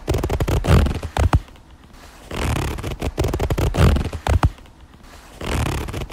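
A stiff clothing zipper being pulled, a rasping scrape with small clicks, three times over.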